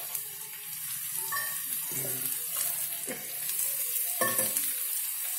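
Chopped beetroot and onions sizzling in hot oil in a frying pan, just after the beetroot goes in. A wooden spatula scrapes through them and knocks against the pan a few times as it stirs.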